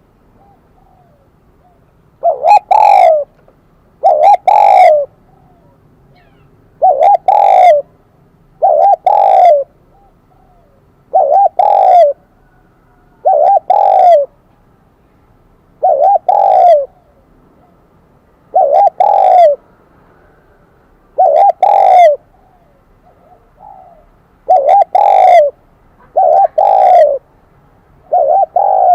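Spotted dove cooing loudly and repeatedly, one call about every two seconds, in the high, ringing 'kim đồng' voice that keepers use as a decoy call to draw in wild doves.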